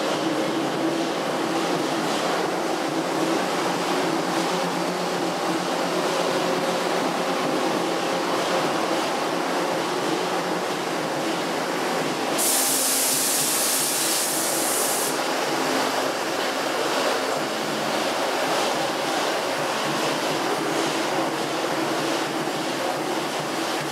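Taiwan Railway DRC1000 diesel multiple unit departing and rolling slowly past the platform, its diesel engines humming steadily. About halfway through, a loud hiss breaks in for about two and a half seconds.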